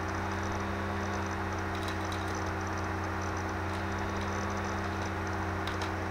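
Steady low electrical hum with an even background hiss, with a few faint ticks about two seconds in and again near the end.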